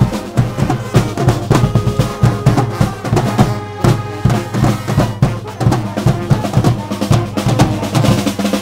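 Pep band playing live: brass and saxophones over a busy, steady drum beat with bass drum and snare.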